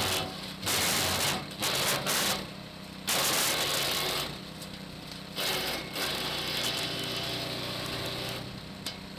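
Hecht 6208 garden branch shredder running with a steady motor hum, breaking into loud chopping noise several times as branches are fed in and cut.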